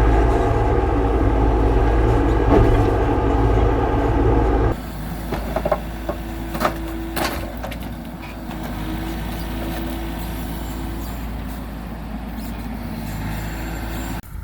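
Mini excavator's engine running hard under load. About five seconds in it drops abruptly to a lower, steadier run, with a few sharp knocks and clanks and a steady hydraulic whine.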